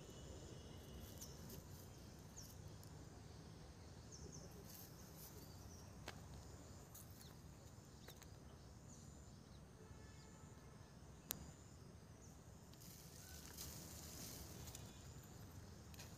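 Near silence: faint outdoor background with a steady low rumble, a few faint high chirps and scattered faint clicks, one sharper tick about eleven seconds in.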